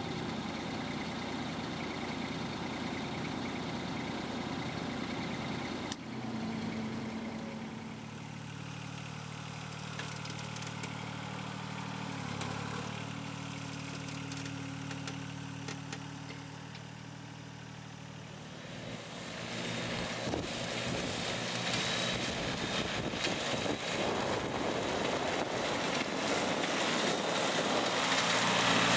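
MacTrac compact tractor's engine running steadily, with its front-mounted 175 cm rotary mower deck. About two-thirds of the way through, the sound grows louder with a wide rushing noise as the machine drives and mows grass.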